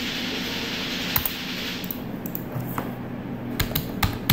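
Computer keyboard keys clicking as a username is typed: a handful of separate sharp clicks, most of them in the second half. A steady hiss runs under the first two seconds, then fades.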